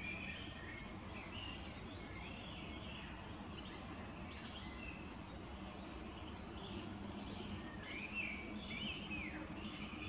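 Common nightingale singing: a run of varied whistled and chirping phrases with quick rising and falling notes, busiest and loudest near the end.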